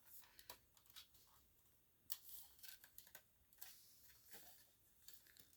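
Near silence with scattered faint clicks and taps from a smoke alarm and its mounting bracket being handled.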